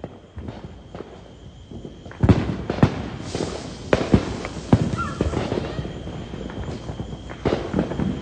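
Fireworks going off: scattered pops, then a rapid run of sharp bangs and crackling from about two seconds in that thins out but keeps popping to the end.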